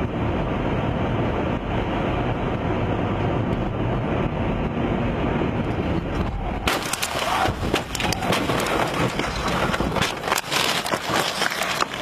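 Steady road and engine noise of a moving car, heard from inside. About seven seconds in it changes abruptly to a brighter, rattling noise full of sharp clicks and knocks.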